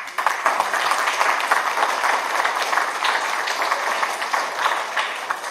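Audience applauding: dense clapping from many hands that tapers off near the end.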